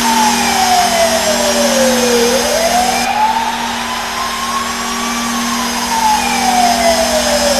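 Ice hockey goal horn sounding on a steady low note, with a wailing siren over it that slowly falls in pitch, rises again and falls once more, about six seconds to a full cycle.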